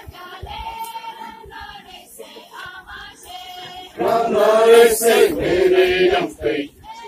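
Group of Tangsa Naga dancers chanting a traditional Sapolo dance song together, with a much louder chorus coming in about four seconds in and dying away shortly before the end.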